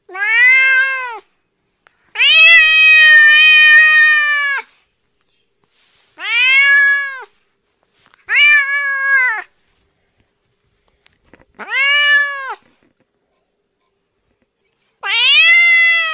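Domestic cat meowing six times, each meow rising and then falling in pitch. One drawn-out meow starts about two seconds in.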